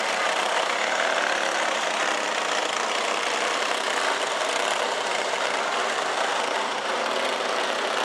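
A pack of racing go-karts with single-cylinder four-stroke clone engines, running together in a steady, unbroken mass of engine noise.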